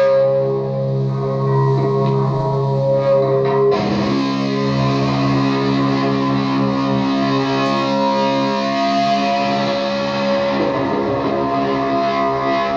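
Psychedelic noise loop of electric guitar through an Orange amp and effects: a droning layer of held, looped notes, with a live distorted guitar part coming in over it about four seconds in.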